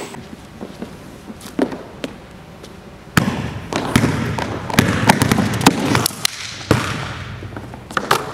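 Basketball dribbled on a hardwood gym floor: a string of sharp, irregular bounces, denser and louder from about three seconds in.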